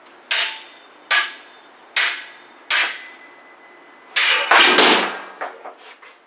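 Fencing sabre blades clashing as they meet in parries and beats on the blade: four single ringing strikes a little under a second apart, then a rapid flurry of several clashes about four seconds in, trailing off into lighter clicks.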